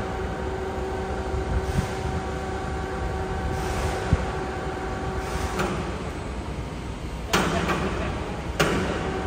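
Electric hoist motor humming steadily as it lowers a heavy machine platen. It stops a little past halfway, then two sudden, harsh rushes of noise about a second apart as it is started again near the end.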